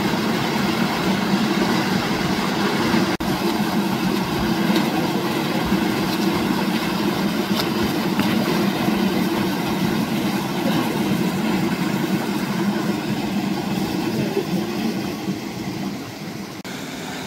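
Steady whirring hum of a camera drone's propellers, holding one pitch and easing off slightly near the end.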